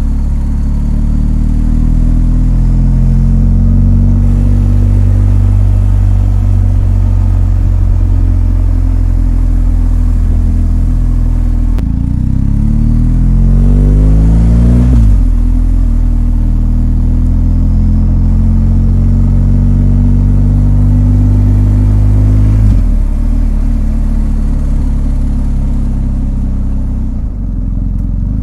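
BMW R1250 GS's boxer twin engine running under load while riding, heard steadily throughout. About halfway through the engine note rises and then drops sharply, it drops again about two-thirds of the way in, and it briefly eases off near the end.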